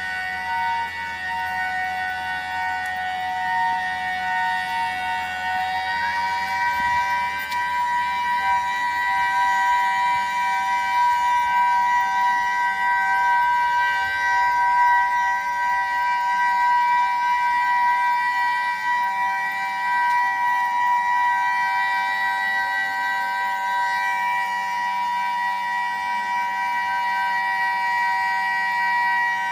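A siren sounding one long, steady tone made of two pitches held together. It shifts slightly higher about six seconds in, then holds without rising and falling.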